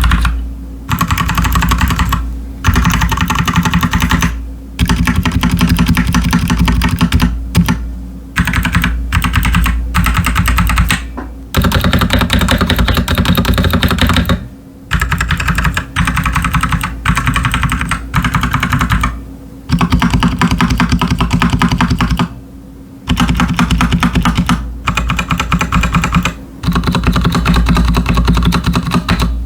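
Typing on a Royal Kludge RK61 mechanical keyboard with stock, unlubricated Nightwalker Solaris tactile switches and OEM-profile PBT pudding keycaps. The keystrokes come in fast runs of a few seconds each, broken by brief pauses.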